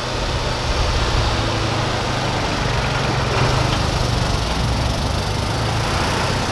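Diesel engines of fire trucks running as a convoy drives past, a steady low engine drone with road and tyre rush over it.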